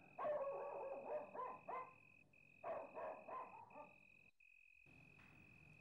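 Night ambience: a dog barking in two short bouts, over a steady high trill of crickets that breaks off briefly every second or so.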